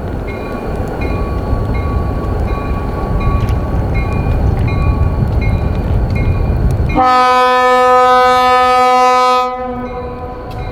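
EMD GP40 diesel locomotive running past with a heavy rumble and a high ding repeating about twice a second. About seven seconds in, its horn sounds one long blast of about two and a half seconds, the loudest sound, then cuts off.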